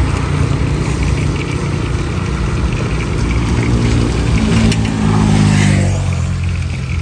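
A motor vehicle going by on the road, its engine drone rising in pitch and growing loudest about five seconds in, then fading away.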